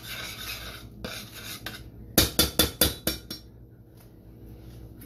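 Spoon stirring and scraping around a stainless steel saucepan of sauce, then a quick run of about five sharp clinks of the spoon against the pan about two seconds in.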